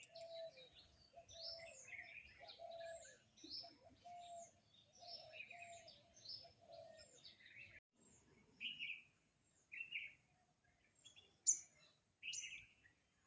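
Birds chirping, faint, in short repeated calls, with a lower repeated note running alongside for the first half; after a short break about eight seconds in the chirps come more sparsely.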